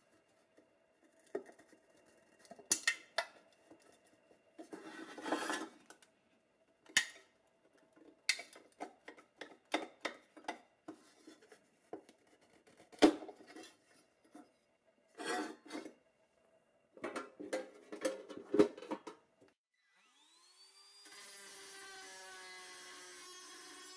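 Workshop tool work on metal parts: scattered clicks, knocks and short scraping strokes. About twenty seconds in, a small power tool spins up with a rising whine and then runs steadily.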